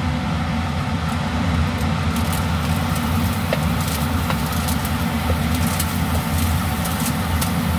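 Pieces of leftover grilled chicken, bell pepper and onion are scraped off a foil tray with a wooden spatula into a hot, dry stainless-steel skillet, with many quick crackles and scrapes from about two seconds in as they hit the pan. Under it runs a steady low mechanical hum.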